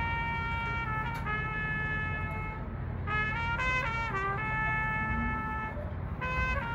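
High school marching band playing, its brass holding long chords that step from one note to the next, with a quicker passage of changing notes about three to four seconds in.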